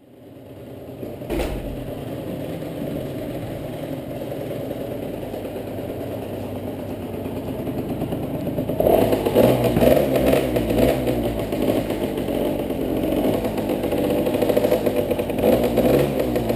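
Honda MTX 80's small two-stroke single-cylinder engine running at idle, with a single knock about a second in, then louder and rougher from about halfway through.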